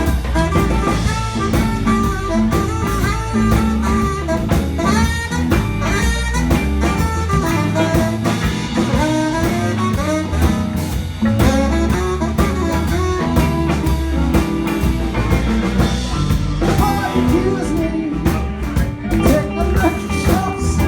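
Live blues band playing an instrumental passage: drums, bass and a lead instrument soloing over the groove, with no singing.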